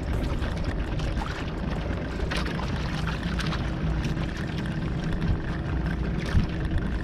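Water sloshing and splashing against the hull of a small fishing boat at sea, over a steady low rumble, with a faint steady hum joining about halfway through.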